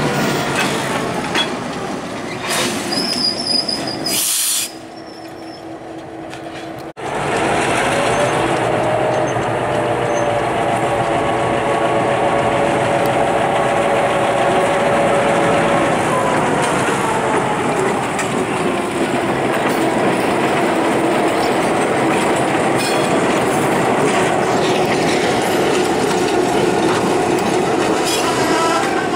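Gettysburg & Northern freight train rolling past with steady wheel and rail noise and a long squeal that slowly drops in pitch. About five seconds in the sound goes quieter for a couple of seconds, then comes back abruptly.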